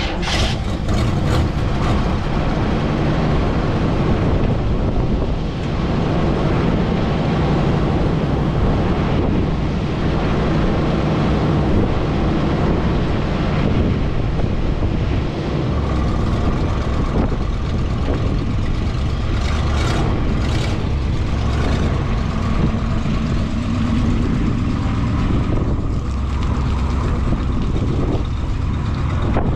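Old motorhome's engine running steadily, back in running order after sitting for more than ten years.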